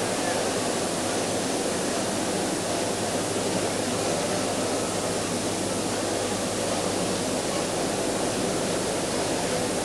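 Steady, even background noise of a large indoor hall with a seated crowd, heard with an old video recording's hiss. No distinct sounds stand out.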